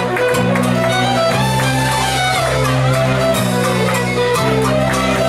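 Live folk ensemble playing a lively tune led by many fiddles, over held low bass notes and a steady beat.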